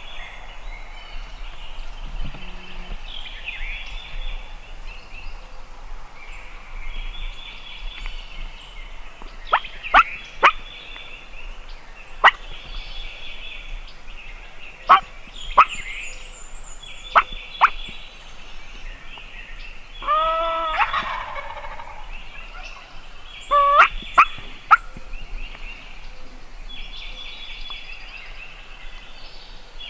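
Wild turkey gobbling: a long, loud rattling gobble a little past the middle and a shorter one soon after. Before them come about seven short, sharp, loud turkey notes. Small songbirds sing steadily throughout.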